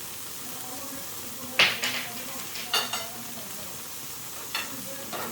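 Utensils clattering and scraping against a shabu-shabu grill pot in three short bunches, the first the loudest, over a steady sizzle of food cooking.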